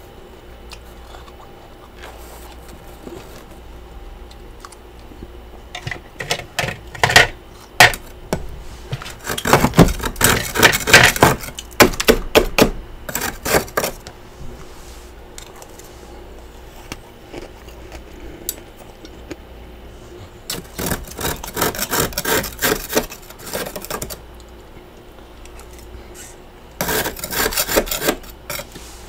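Freezer frost crunching in bursts of dense crackling. There are four bursts, from about six seconds in, with quieter stretches between them.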